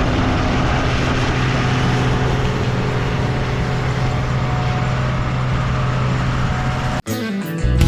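Combine harvester running steadily, a constant low engine hum under a wash of machine noise. About seven seconds in it cuts off abruptly and guitar-and-drum music starts.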